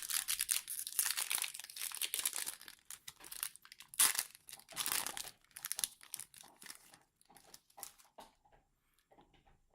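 Foil Yu-Gi-Oh booster pack wrapper being torn open and crinkled in the hands, thick crackling at first, then dying down to a few scattered crinkles.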